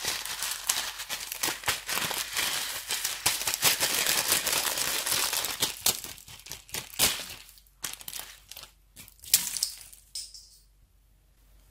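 Crunchy slime squeezed and pressed by hand, giving dense crackling and popping. The crackling thins out after about six seconds and dies away near the end.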